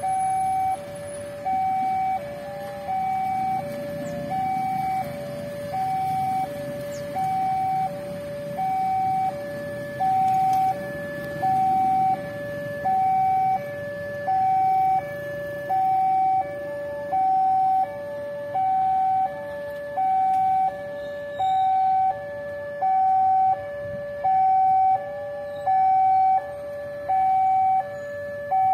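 Railway level-crossing warning alarm sounding, a steady electronic two-tone signal alternating high and low over and over: the warning that a train is approaching the crossing.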